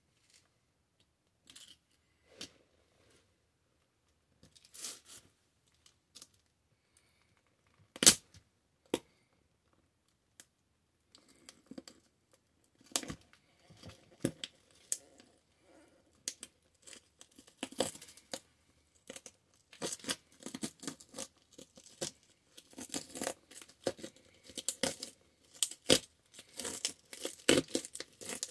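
Small diecast John Deere toy tractor cracking and crunching under a leather cowboy-boot heel as it is ground against a concrete floor. A few scattered ticks come first, then one sharp loud crack about eight seconds in. From about eleven seconds a dense run of crunching and scraping grows busier and louder as the toy breaks up.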